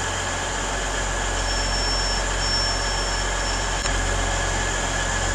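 Class 180 diesel multiple unit's underfloor diesel engines running steadily at the platform, a low even hum with a faint high-pitched whine coming and going in the middle.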